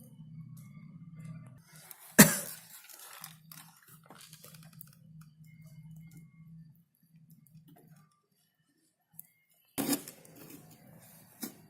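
A low hum that cuts in and out, with a sharp click about two seconds in and clattering near the end.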